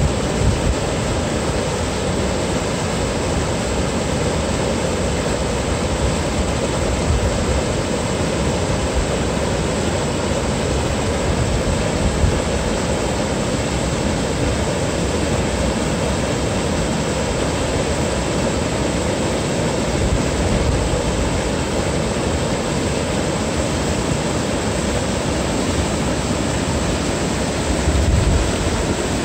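Water rushing steadily over a low river weir: a constant, even rush of white water.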